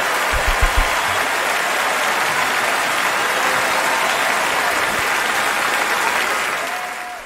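Large audience applauding steadily, with a few low thumps about half a second in; the applause fades out near the end.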